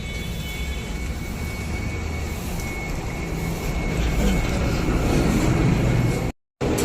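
Steady low rumble of motor vehicle noise with a thin steady whine, growing louder a little after halfway, then cut off abruptly near the end.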